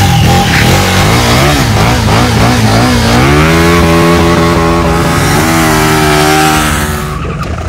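KTM Super Duke R's V-twin engine revved in quick blips, then climbing and held at high revs with a brief dip about five seconds in, while the rear tyre spins in a smoky burnout. The revs ease off near the end.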